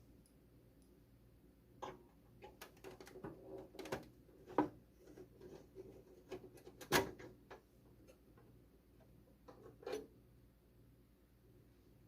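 Irregular clicks, taps and light knocks of hands handling a desktop PC's parts during a RAM upgrade, with two sharper knocks in the middle, over a faint steady hum.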